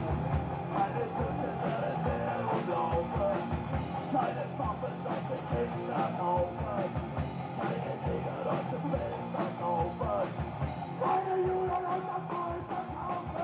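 Punk-style rock music with a drum kit and singing, a song by a far-right rock band.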